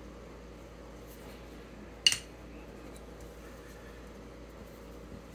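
A single sharp clink about two seconds in, a barber hone set down on a hard surface, over a steady low hum.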